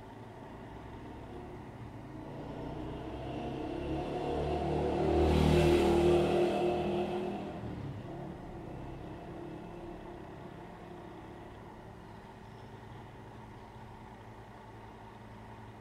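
A road vehicle passing by, growing louder to a peak about six seconds in and then fading away, over a steady low hum.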